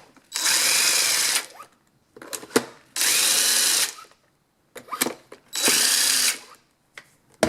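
A power drill runs in three short bursts, each about a second long, with its motor pitch rising and falling, as it backs screws out of a space heater's housing. Small clicks and knocks of the bit and the screws come between the bursts.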